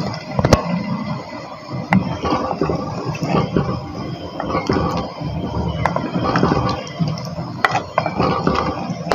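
A spatula stirring watery chicken, potato and pea curry in an earthenware pot, with scraping and sloshing and a few sharp knocks against the pot. The water was just added to the curry.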